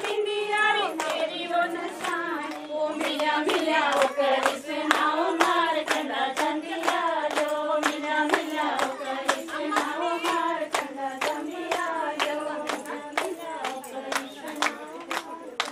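Women singing a Pahari gidda folk song (boliyan), with steady rhythmic hand clapping at about three claps a second.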